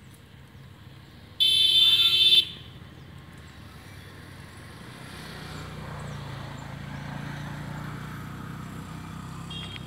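A loud horn blast held steady for about a second, followed a few seconds later by the low hum of a motor vehicle engine that builds and holds.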